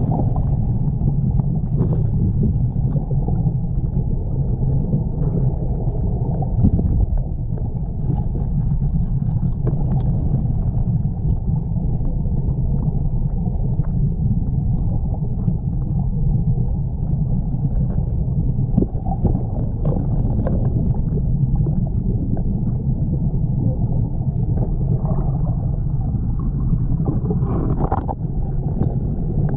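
Steady, muffled low rumble of a strong river current, with scattered small knocks.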